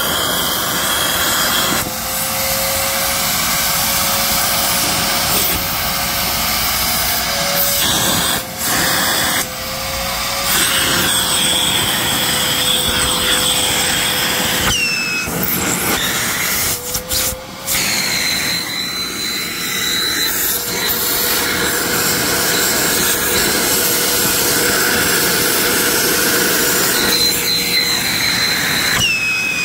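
Vacuum cleaner running steadily while its nozzle sucks gunk out of a car's rain wells. A steady whine and a high whistle shift in pitch now and then, and the noise dips briefly a few times.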